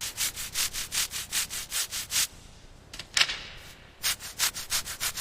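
Hand sanding: quick back-and-forth abrasive strokes on a surface, about four or five a second, stopping for a couple of seconds partway through before starting again.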